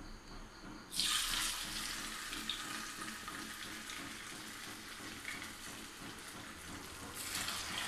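Masala-coated sardines sizzling as they are dropped into hot coconut oil in a frying pan. The hiss starts suddenly about a second in, runs on steadily and flares up again near the end.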